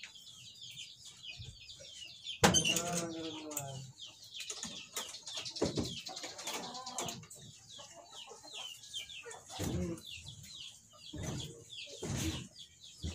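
Chickens clucking, with a louder call about two and a half seconds in and shorter ones later, over constant fast high-pitched chirping.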